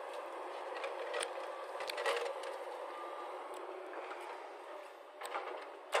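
Hyundai crawler excavator's diesel engine and hydraulics running steadily as the boom swings down to dig, with several sharp knocks, the loudest near the end.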